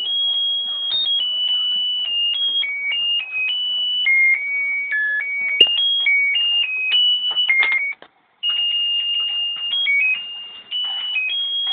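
Tinny electronic Christmas-style melody from a battery-operated Santa-on-reindeer toy's music chip, playing one high note at a time. There is a sharp click a little past halfway, and the tune breaks off for a moment about eight seconds in, then starts again.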